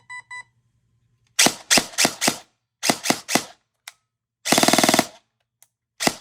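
G&G Combat Machine airsoft AEG fitted with a Gate Titan, test-fired before programming: three quick beeps at the start, then single shots in quick succession, four and then three, and a short full-auto burst of about half a second past the middle.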